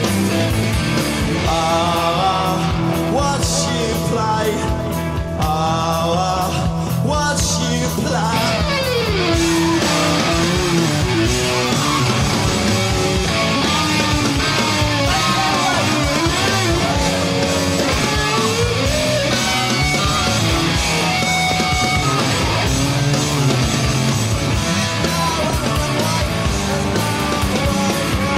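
Rock band playing loud electric guitar and bass; a singer's voice comes in about eight seconds in.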